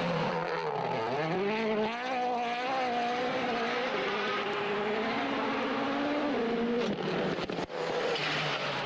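Rally car engine running hard, its pitch dipping about a second in and then climbing and holding. Near the end there is a brief break in the sound before it picks up again.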